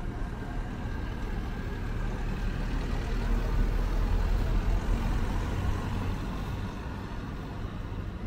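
A motor vehicle's engine rumbling low as it goes by, growing louder through the middle and easing off toward the end.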